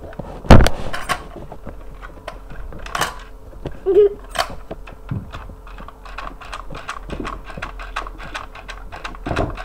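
Knocks, taps and light clatter of things being handled and put down. One loud knock comes about half a second in, then scattered knocks, then a run of small quick taps near the end.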